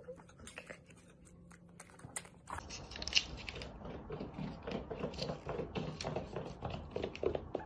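Small dog (Shih Tzu) nibbling at fingers: faint clicks of teeth. From about two and a half seconds in comes a denser run of small clicks and scrapes, the loudest about three seconds in.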